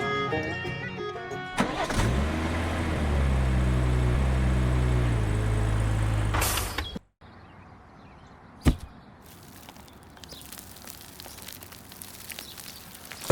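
Banjo-like music ends about a second and a half in. An engine starts and runs with a low, steady hum for about five seconds, then cuts off abruptly. A single sharp click follows, then only faint noise.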